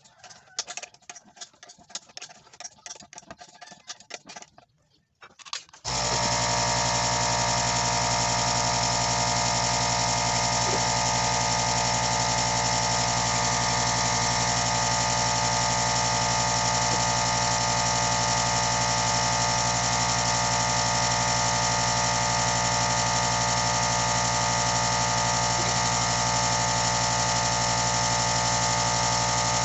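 Light clicking and scraping of a screwdriver turning the pressure switch's adjustment screw, then about six seconds in the electric air compressor's motor and pump start suddenly and run steadily. The compressor kicks in because the switch's cut-out setting has been turned up.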